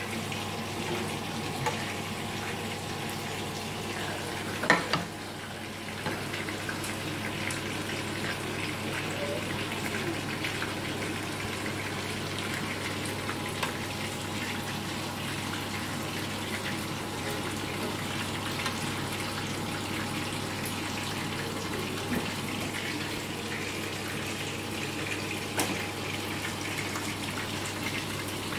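Steady watery rushing noise over a low steady hum, with a brief sharp clatter about five seconds in.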